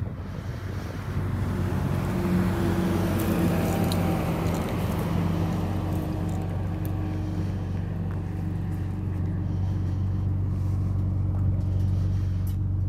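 Ferrari 430 Scuderia's 4.3-litre flat-plane V8, fitted with aftermarket headers and exhaust, running steadily at low revs.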